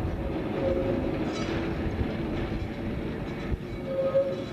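Single-deck electric tram (Dudley, Stourbridge & District No. 5) running along its track, with a steady rumble of wheels on the rails and a brief squeal about four seconds in.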